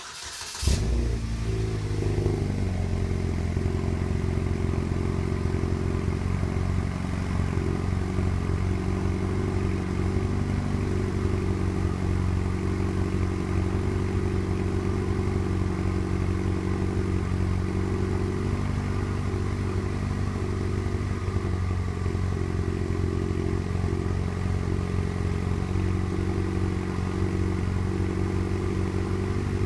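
2009 Chevrolet Cobalt SS's turbocharged 2.0 L four-cylinder cold-started after sitting outside overnight: a brief crank, the engine catches with a short flare about a second in, then settles into a steady idle heard from the exhaust behind the car.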